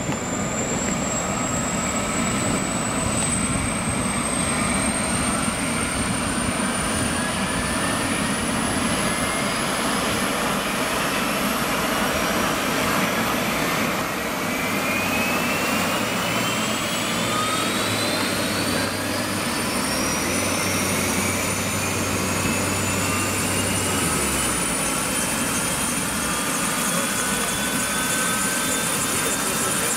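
Turbine helicopter running on the ground with its main rotor turning: a steady rush with high whines that climb slowly in pitch as the engine spools up.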